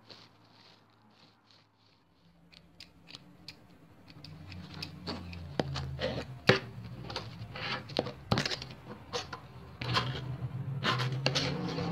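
Sharp dry clicks and scratchy scraping sounds, sparse at first and denser and louder from about four seconds in. Under them is a low droning hum that swells at the same point and again near the end.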